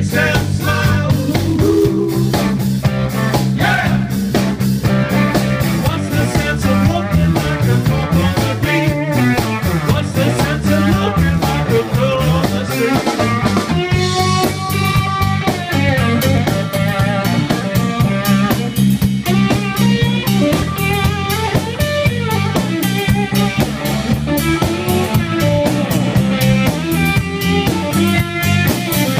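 Live band playing an up-tempo number: electric guitar over electric bass and a drum kit. About halfway through there is a stretch of bent, held notes.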